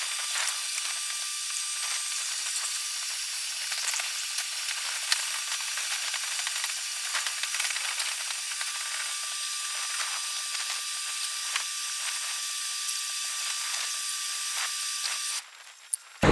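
Steady hiss of air rushing into large clear plastic sheets as they balloon up, with small crackles of the plastic; the hiss cuts off suddenly about a second before the end.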